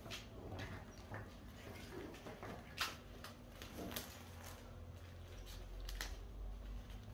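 Faint handling and footstep noise: scattered light taps and clicks of flip-flop steps on concrete and a cable being handled, with one sharper click about three seconds in and a low hum from about five seconds in.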